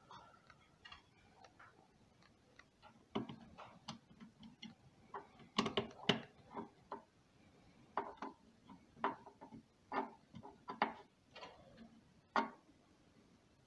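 Small hand screwdriver with interchangeable bits driving a motherboard mounting screw, with irregular clicks and light taps as the bit turns and catches.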